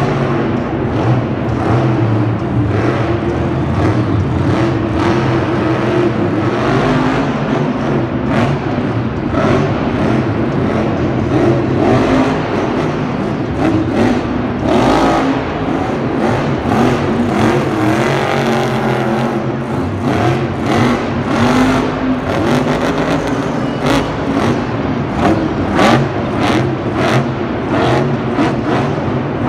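Monster truck engines running loud and revving repeatedly, a continuous heavy engine sound with many short sharp bursts on top.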